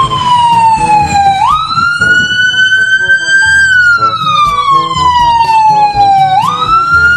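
Toy ambulance's electronic siren wailing. The pitch slides slowly down, jumps back up about a second and a half in, climbs a little, then slides slowly down again and jumps back up near the end.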